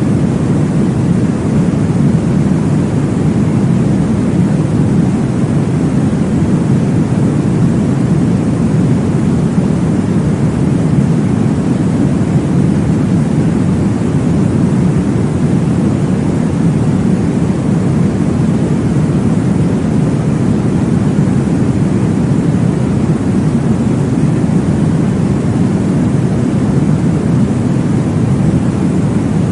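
Steady, deep whooshing noise from a baby-sleep noise track, heaviest in the low range with little hiss on top, unchanging and with no clear beat.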